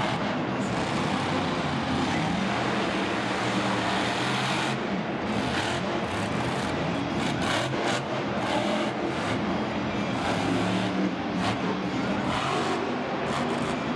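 Monster truck's supercharged V8 engine running hard, its revs rising and falling again and again.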